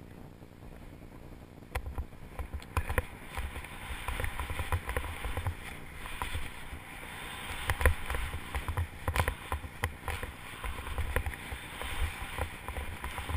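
Skis running over powder snow, with a low, uneven rumble and scattered sharp knocks. It gets louder about two seconds in.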